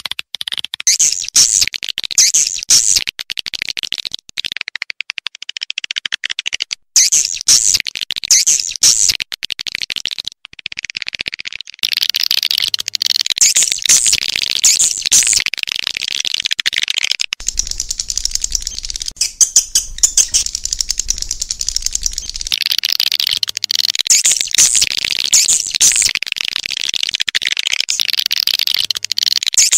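Edible-nest swiftlets twittering: dense, rapid, high chirps repeating over and over, the kind of swiftlet-call recording played to lure swiftlets into a nesting house. The chirping breaks off suddenly a few times in the first dozen seconds, then runs on without a break.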